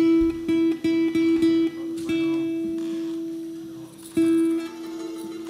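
Guitar playing: a quick run of repeated plucks on one high note, then a note left to ring for a couple of seconds, and a fresh pluck about four seconds in.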